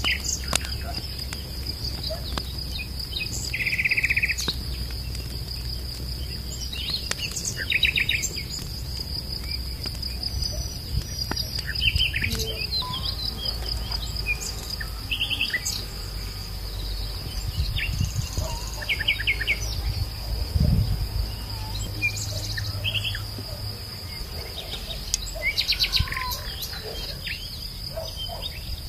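Insects trilling steadily on one high note, with short bird chirps every few seconds over a low rumble and a few knocks.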